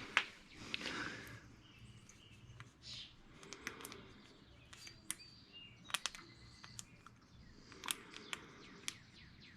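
Faint, scattered clicks and clinks of small loose hardware being picked through by hand, with a few short, high chirps between them.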